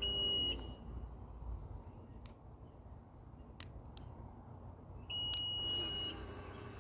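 A car's electronic warning beep, one steady high tone: a short beep at the start and a longer one of about a second about five seconds in, with a few faint clicks between.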